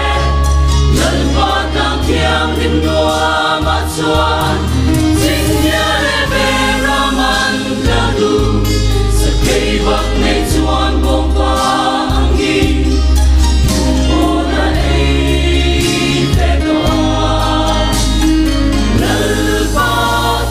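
Mixed choir of men and women singing together, with steady low bass notes held underneath that change every second or two.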